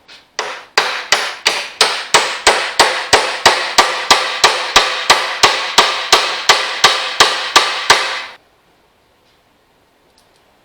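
Hammer blows driving the steering wheel onto the steering shaft of a John Deere 185 lawn tractor: about two dozen even metal strikes, three a second, each ringing briefly, stopping about eight seconds in.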